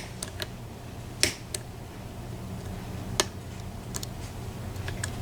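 A few scattered sharp clicks and taps from lock picks working inside a PACLOCK 90A padlock, the loudest about a second in, over a steady low hum.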